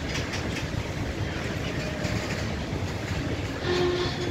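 Freight train of flat wagons loaded with rails rolling past: a steady rumble with the wheels clacking over the rail joints. A short pitched tone sounds near the end.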